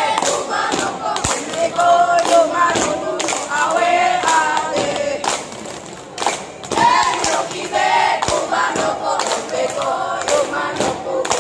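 A scout troop chanting and singing a yel-yel cheer together in unison, with sharp thumps from the performers' claps and stomps through it.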